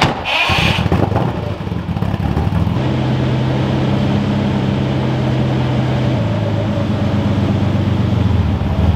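Lamborghini Countach V12 starting with a short sharp burst, then idling steadily and loudly, its idle note shifting slightly as it settles.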